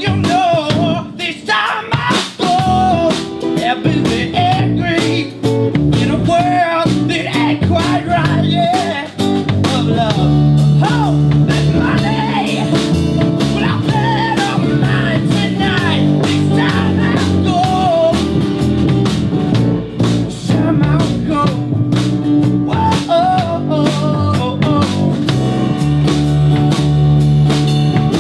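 Live band playing a bluesy rock number: guitars and drums under a melody line that bends in pitch.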